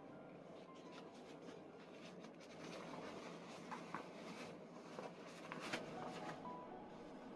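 Rubber kitchen gloves rubbing and rustling as they are pulled on and the gloved hands move about, with a few light knocks a little past halfway.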